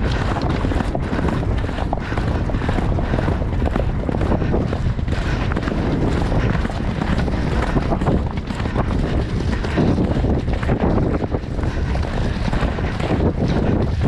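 Wind rushing and buffeting over the rider's camera microphone as the horse gallops, with the beat of its hooves on turf running through it.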